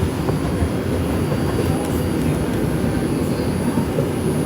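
Subway train running along the track: a loud, steady, low rumble of wheels and motors.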